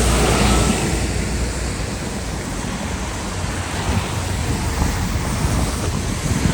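Steady rushing noise of road traffic at a busy intersection, mixed with wind buffeting the microphone; the low rumble is heaviest in the first second.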